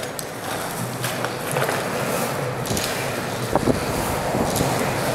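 Longboard wheels rolling steadily over smooth concrete, a continuous rushing noise that grows a little louder. A few sharp clicks break through it.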